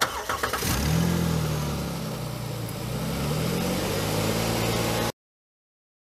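Jeep Wrangler JKU V6 engine revving up and held at a fast idle of about 2000 RPM while SeaFoam Spray is fed into the throttle body, its speed sagging slightly and recovering. The sound cuts off suddenly about five seconds in.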